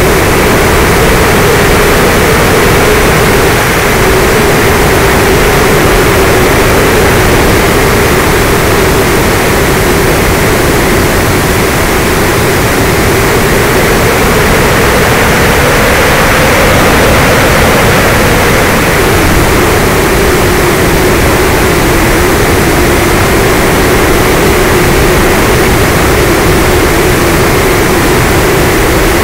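Motor and propeller of an RC model aircraft, recorded in flight by its onboard camera. It is a loud, steady drone with a hum that rises slightly about halfway through and settles back, over a constant rush of wind.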